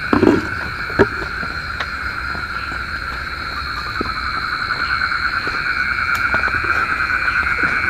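Steady night chorus of calling insects and frogs around a rice paddy, held in several high pitches at once, with a couple of short knocks in the first second.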